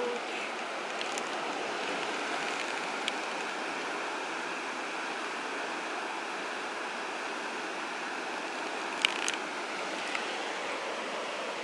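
Steady wash of sea surf, with a few small sharp clicks; the loudest is a quick pair about nine seconds in.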